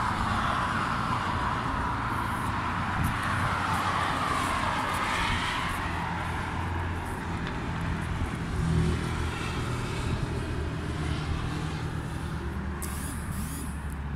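Strong wind blowing on the phone's microphone as a low rumble, with road traffic passing; one vehicle swells and fades about five seconds in.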